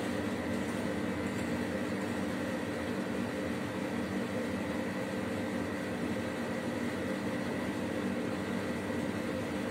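Steady machine hum over a hiss: a low drone with a faint high tone above it, unchanging and with no separate strokes or knocks.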